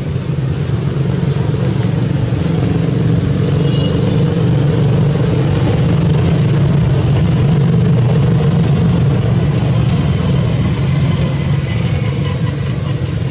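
An engine running steadily nearby, a loud, even low hum with no rise or fall.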